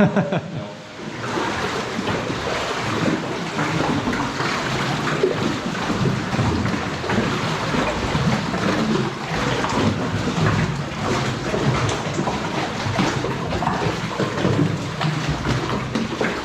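Loud, steady rushing water with irregular splashes throughout, like a cave stream or waterfall.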